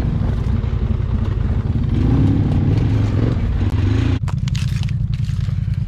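ATV engine running under way, its revs rising and falling, with scraping and rattling over the top. About four seconds in the sound changes abruptly to a steadier low drone with scattered clicks.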